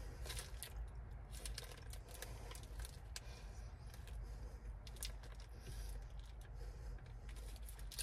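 A person chewing a mouthful of burger: faint, irregular soft clicks and smacks of the mouth, over a low steady hum.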